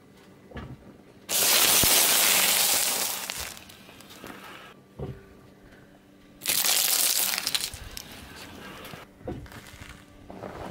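A car tyre rolling onto a box of wafer sticks and crushing it, with a loud crunching that lasts about two seconds. About five seconds later comes a second, shorter burst of crunching and cracking as the tyre crushes rows of small round hard candies. A faint low steady hum runs underneath.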